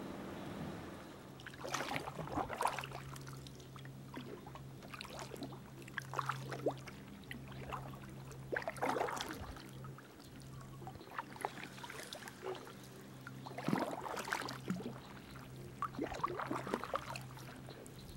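Kayak paddle strokes in calm water: every few seconds the blade dips and pulls, with splashing and dripping water.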